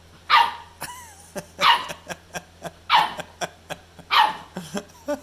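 Pit bull puppy barking: four sharp, evenly spaced barks, about one every second and a quarter, with faint small clicks in between.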